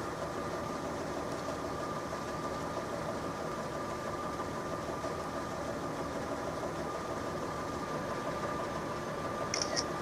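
Steady hum of an idling engine, with a constant thin whine above it and no change in pitch or level.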